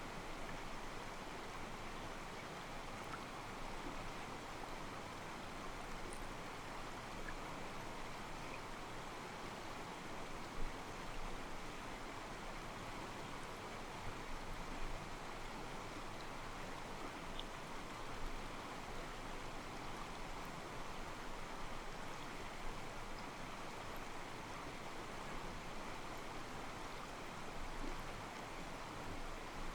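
Calm mountain stream flowing over rocks: a steady rush of water with soft sloshing against the stones, now and then a slightly louder splash.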